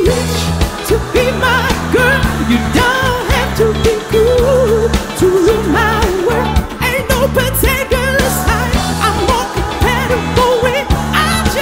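Background pop song: a sung melody over a bass line and beat.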